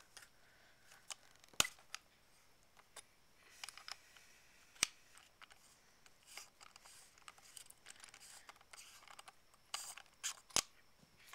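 Small clicks, ticks and light scraping as the back cap of a Dangerous Power G4 paintball marker is unscrewed and pulled off, parts knocking against one another. Three sharper clicks stand out, about one and a half, five and ten and a half seconds in.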